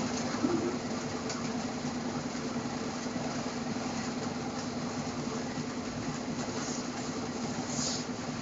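Steady engine drone with a constant low hum and a few faint ticks, heard aboard a chain ferry under way.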